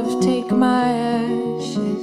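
A woman singing with held notes, accompanying herself on a steel-string acoustic guitar.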